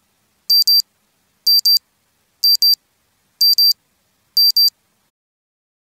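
Digital countdown timer's end alarm: high-pitched electronic double beeps, one pair a second, five pairs in all, then it stops.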